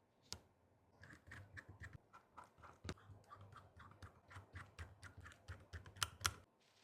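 A faint, quick run of light clicks and taps, about four or five a second, from handling an iPhone 14 Pro Max during a repair. Two louder, sharper clicks come near the end.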